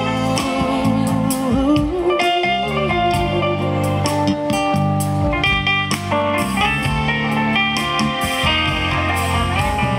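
Live band playing an instrumental break in a pop ballad: a lead guitar melody with bent, sliding notes over strummed acoustic guitar, bass, keyboard and drums.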